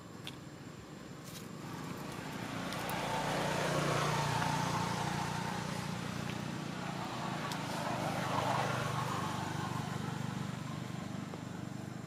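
A motor vehicle passing by: engine and road noise swell up over a couple of seconds, ease off, swell again, then slowly fade.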